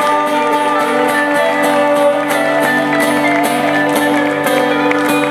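Live band playing the instrumental close of a song: sustained chords over a steady beat.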